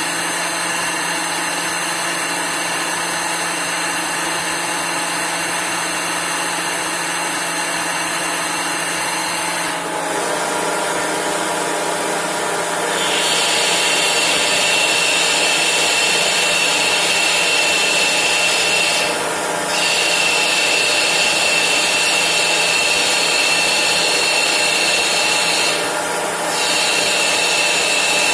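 CNC lathe turning a velocity stack dry: the spindle whines steadily while the tool cuts and chips come away. The sound shifts about ten seconds in, and a few seconds later a louder, higher whine takes over, broken twice by brief dips.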